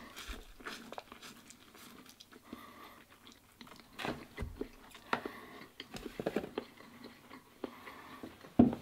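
Close-up sound of a man chewing a mouthful of instant noodles: soft wet mouth sounds and scattered small clicks, with one louder click near the end.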